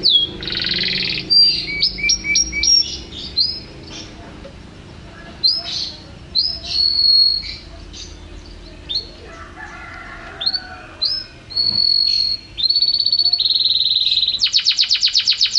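Domestic canary singing a varied song of short chirps and whistled notes. Near the end it breaks into fast trills, the last one quicker and louder.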